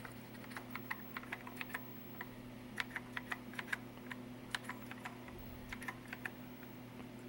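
Keys on a Commodore SX-64's keyboard being pressed one after another, giving irregular clusters of short clicks over a steady low hum.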